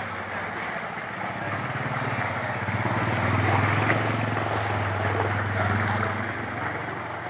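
A motor vehicle's engine running as it moves through floodwater, its hum building and then fading away, over a steady wash of water.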